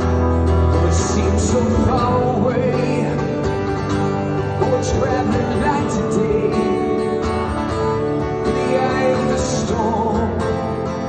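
Live song: a strummed steel-string acoustic guitar with a man singing into a microphone in stretches.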